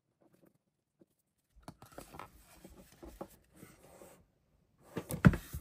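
Handling noise from reassembling an angle grinder's plastic housing: faint rustling and small clicks that start about a second and a half in, then a few louder knocks near the end.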